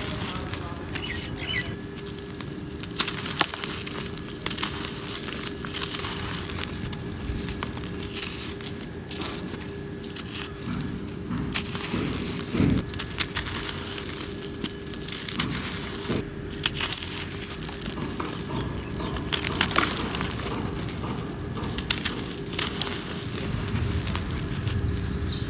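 Hands crumbling and sifting dry, gritty cement: a steady crunchy rustle of falling grit and powder, full of small crackles, with a few louder cracks as lumps are squeezed apart.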